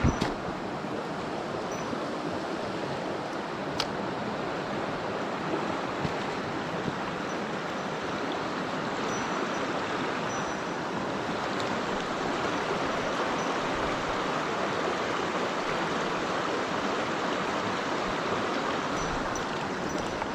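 Mountain stream water rushing steadily, with two sharp clicks: one at the very start and one about four seconds in.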